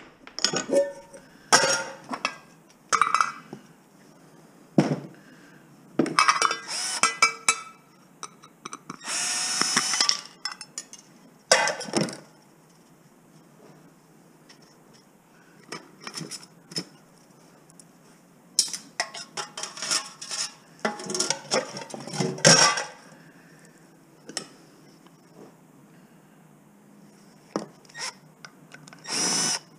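Irregular hammer blows and metal clatter as pots, pans and their parts are knocked apart and tossed on a workbench. A cordless drill/driver runs briefly near the end.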